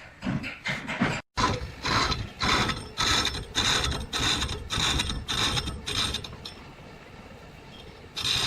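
Repeated mechanical strokes, about two a second, then a quieter steady hiss near the end.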